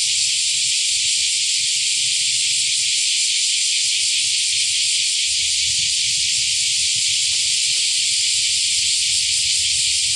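Chorus of many cicadas singing together, a dense, steady, high-pitched shrill with no breaks: the year's first cicada chorus of summer.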